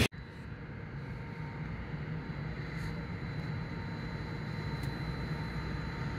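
Low, steady rumble of an approaching class 248 (Siemens Vectron Dual Mode) locomotive, slowly growing louder, with a faint steady high whine.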